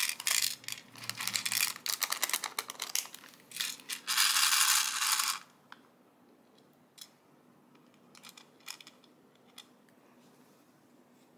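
Small plastic rose-shaped diamond-painting stones clicking as they are snipped loose and dropped into a plastic tray, then a rattle for about a second and a half as the tray is shaken. The rattle stops about five seconds in, and a few light ticks follow.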